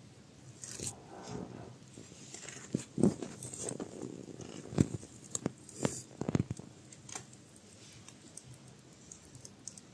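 Kittens suckling at their mother cat and shifting in her fur close to the microphone: irregular soft smacks, clicks and rustles, busiest between about three and six seconds in.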